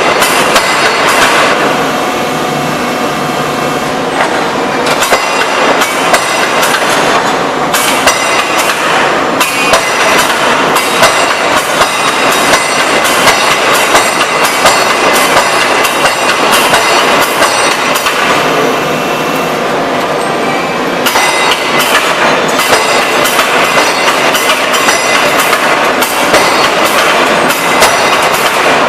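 Hydraulic open die forging hammer striking hot metal in rapid repeated blows over loud, steady forge machinery noise; the blows thin out briefly twice.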